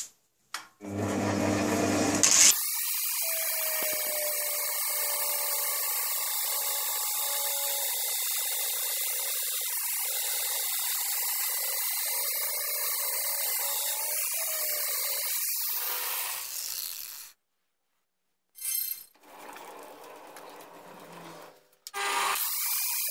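Angle grinder with a 120-grit flap disc fine-grinding a rifle barrel as it turns in a lathe, a steady hissing grind. It breaks off for a moment about three-quarters through, runs quieter for a few seconds, then grinds loudly again near the end.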